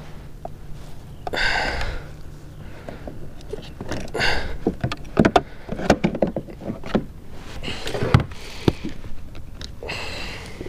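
Knocks, clicks and rustling from handling a freshly landed catfish and a fishing rod in a kayak, with four short bursts of hiss a few seconds apart.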